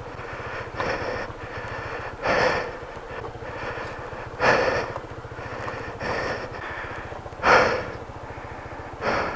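Honda ADV 160 scooter's single-cylinder engine running steadily at low revs, under heavy breathing from the tired rider: about six loud breaths, one every second or two, the strongest near the end.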